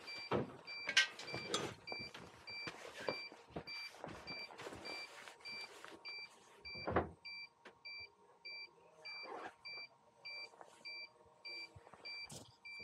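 A small electronic beeper on an FPV micro drone sounding short, even beeps about twice a second, over scattered knocks and rustling from handling, loudest about a second in and again near seven seconds.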